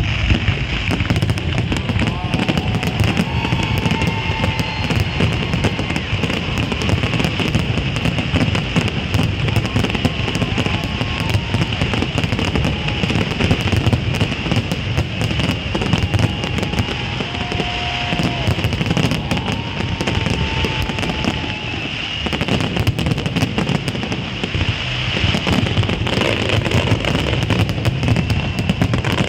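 Fireworks display going off without a break: dense, rapid crackling and bangs from many shells bursting. Music plays underneath.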